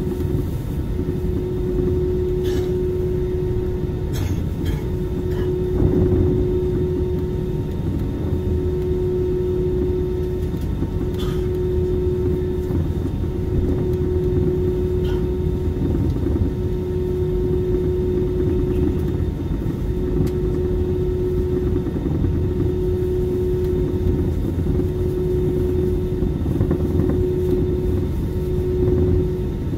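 Airliner cabin noise during taxi: a steady low rumble from the jet engines and the rolling aircraft, with a steady hum running through it and a few light clicks in the first dozen seconds.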